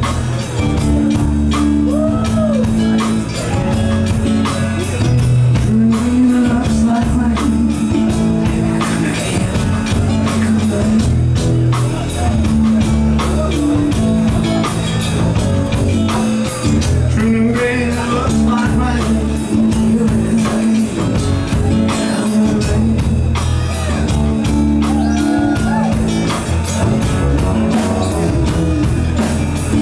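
A live band plays a slow rock song: acoustic guitar strumming over sustained bass notes, with a man singing at times. The room's reverberation is audible.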